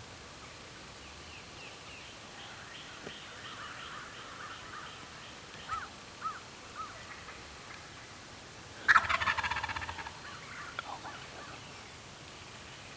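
Wild turkey gobbler gobbling once, loud and close, about nine seconds in, a rapid rattling call that fades over about a second. A few soft short turkey calls come before it.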